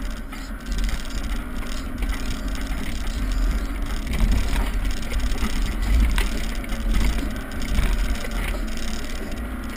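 Off-road 4x4's engine running as the vehicle drives over a rough dirt trail, with scattered knocks and rattles.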